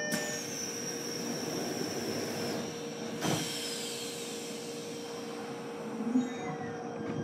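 Interior running sound of a JR East E129-series electric train, from aboard a motor car: steady wheel and rail noise with thin electrical whines from its Toyo Denki VVVF inverter. One whine falls in pitch about three seconds in, alongside a knock.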